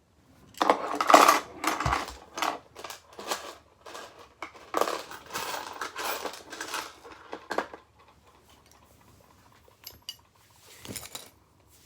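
Small metal butterfly-knife parts clinking and rattling as they are rummaged through by hand: a busy clatter for most of the first eight seconds, then a couple of single clinks near the end.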